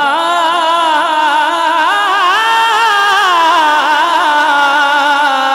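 A man singing a naat into a microphone: one long drawn-out line with wavering ornaments, rising about two seconds in and then slowly falling.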